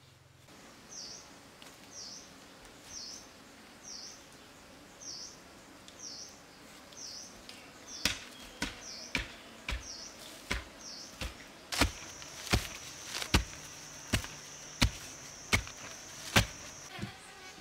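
A sharpened wooden stick driven into hard soil to dig a hole: sharp strikes at one to two a second, starting about eight seconds in. Before the strikes a short high chirp repeats about once a second, and a steady high buzz runs through the last few seconds.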